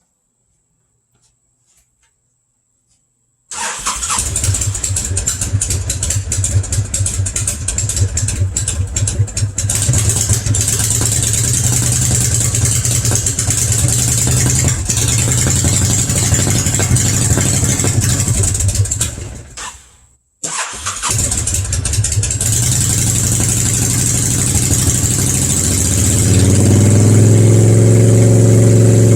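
Honda VTX1300 V-twin engine, cold, starting up and idling loudly through an aftermarket exhaust. About two-thirds of the way in it dies away, then runs again and settles into a steadier idle near the end.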